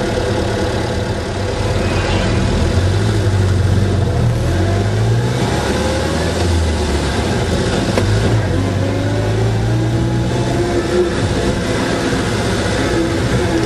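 Austin Seven's small four-cylinder side-valve engine running, heard from on board, its note rising and falling several times as the car is driven.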